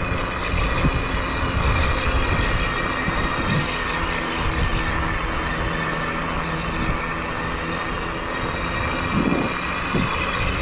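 Bafang BBS-HD mid-drive motor whining steadily with its steel gears while the e-bike cruises along the road, over a steady haze of road noise.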